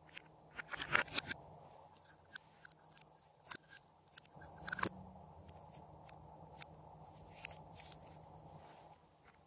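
Lipstick tubes and caps clicking and clinking as they are handled, metal-cased tubes knocking together; a cluster of sharp clicks comes about a second in, with single clicks around three and a half and five seconds and a few fainter taps later.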